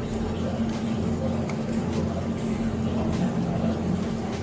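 Steady low hum of a convection microwave oven running as it preheats, with a few faint light ticks over it.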